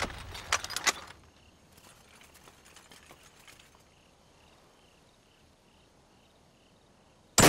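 A few sharp clicks in the first second, then crickets chirping faintly at an even pace of about two chirps a second, and a sudden loud burst at the very end.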